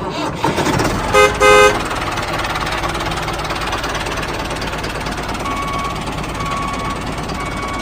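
Vehicle engine running steadily, with two short horn toots about a second in.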